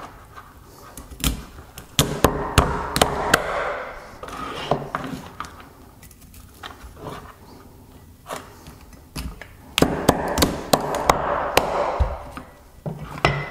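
Cleaver chopping through a mud crab's body onto a wooden chopping board: a run of sharp knocks of the blade on the board and cracking of shell. The chopping comes in two bouts, from about a second in and again from about ten seconds in.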